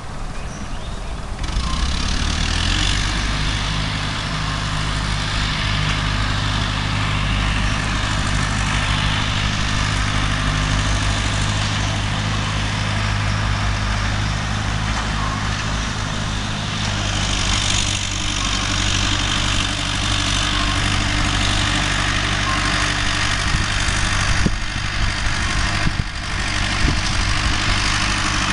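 Nuffield 460 tractor engine running steadily as the tractor moves about, with a few brief dips and knocks near the end.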